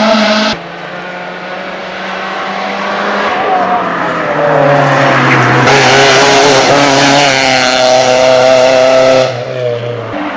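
Rally car engine at high revs, approaching and growing louder as it comes through a bend at speed, with tyre noise as it takes the corner. The sound cuts off suddenly near the end; another engine is cut off just after the start.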